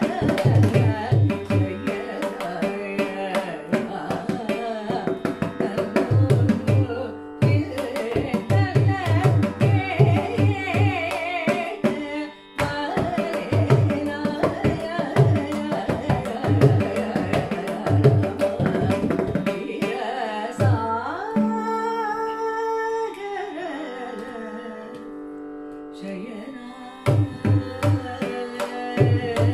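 Woman singing a Carnatic kriti in raga Devagandhari, Adi tala, accompanied by mrudangam strokes over a steady drone. The mrudangam drops out for several seconds in the last third while the voice holds and glides, then comes back in near the end.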